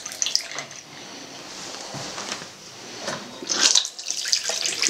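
Water running from a bathroom washbasin tap into the basin. It grows briefly louder about three and a half seconds in.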